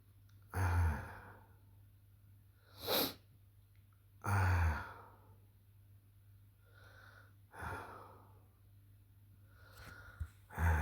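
A sick man coughing in several separate harsh bursts, about four in all, with breathing between them. It is the persistent cough of a sore throat, which he calls nasty.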